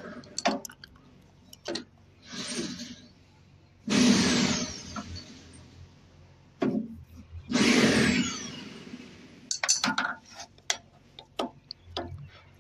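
Metal hand tool clicking and knocking against a gas fryer's oil drain tap as the tap is twisted and unscrewed from the steel front panel. Three longer scraping noises break in, the loudest about four and eight seconds in.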